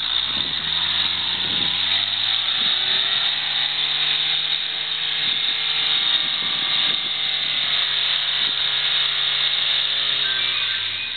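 Suzuki Vitara's engine revving up and held at high revs under load as the 4x4 climbs a snowy, rocky slope, then dropping as the throttle eases near the end. A steady hiss runs under it.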